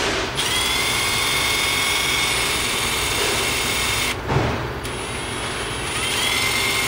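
Milwaukee M12 Fuel 1/4-inch brushless impact driver spinning with no load, a steady high motor whine. It makes one run of about four seconds, a short knock, then a second run that speeds up to full speed near the end.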